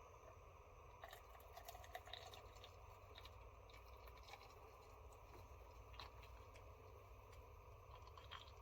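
Near silence: faint room tone with a few light, scattered clicks.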